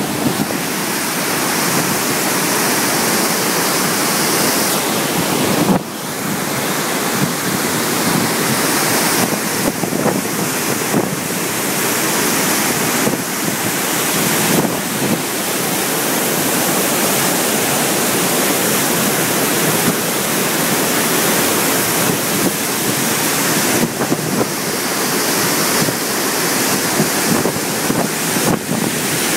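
Guadalentín river in flood at the dam, rushing water making a loud, steady roar.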